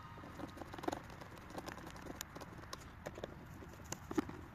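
Faint, scattered small clicks and taps of hands handling a foam model plane's wing and a screwdriver between screws, a little louder about a second in and again near the end.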